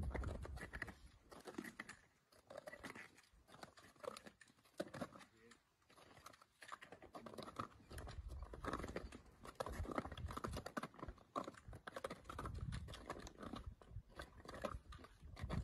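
Faint, irregular crunching and scraping of boots stepping on glacier ice.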